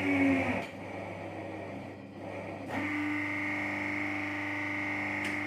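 Hydraulic injection molding machine running with a steady whine. About half a second in, the whine sags in pitch and drops away. After about two quieter seconds it comes back steady.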